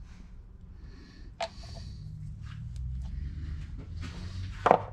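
Low steady hum of a shop machine, growing a little about two seconds in, with a few light metallic clicks and one sharp knock near the end.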